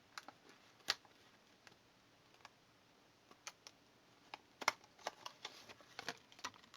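Irregular light clicks and taps of a hot glue gun and glue stick being handled, as a fresh stick is fetched and loaded, with the sharpest click about four and a half seconds in.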